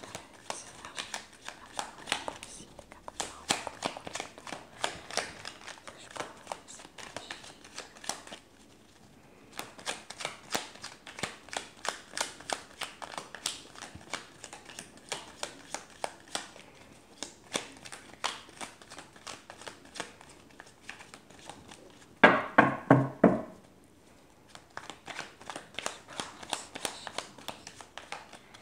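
A deck of oracle cards being shuffled by hand: a rapid run of soft card clicks and rustles, broken by two short pauses. About three-quarters of the way through comes a short, louder pitched sound lasting about a second.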